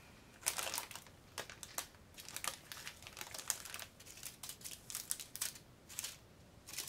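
Small plastic bags of diamond-painting drills crinkling as they are handled, in short, irregular rustles.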